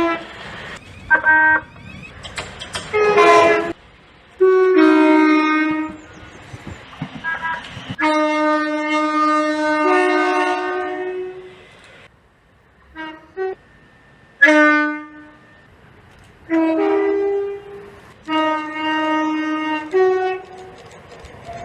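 Train horns sounding one after another: short toots and two-tone blasts that move between a higher and a lower note, the longest held about three seconds in the middle.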